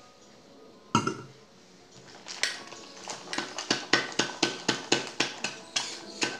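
Ice rattling inside a sealed two-piece metal cocktail shaker (tin-on-tin) being shaken hard, about four or five hits a second, starting about two and a half seconds in. Before that, a single knock about a second in.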